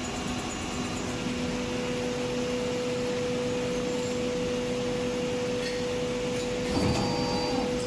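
Kronce 18-cavity PET preform injection moulding machine running: a steady mechanical hum with a held tone, and a short louder noise near the end.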